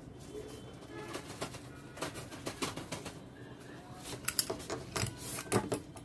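Handling noise from a plastic digital luggage scale and its strap: a run of small clicks, taps and rustles, growing busier and sharper in the second half as the scale is laid on a table.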